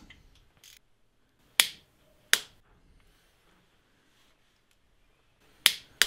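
Click-type torque wrench breaking over twice, two sharp clicks less than a second apart, signalling that the 28 Nm setting has been reached on a timing chain guide rail fastener. Another sharp click follows near the end.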